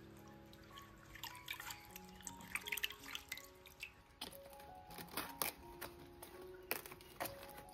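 Soft background music over light splashing and dripping of water as leafy vegetables are washed by hand in a steel basin. About four seconds in, sharp crackles of napa cabbage leaves being pulled off the head.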